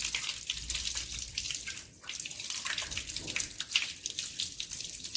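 Water running from a tap into a sink, splashing unevenly as soapy hands are rinsed under it.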